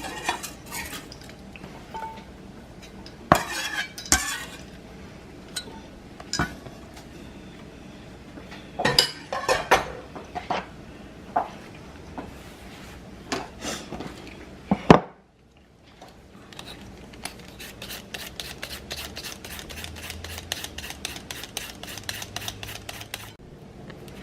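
Kitchen knife cutting onion on a cutting board: scattered knocks and clicks, then, after a short break, fast even chopping at about six strokes a second.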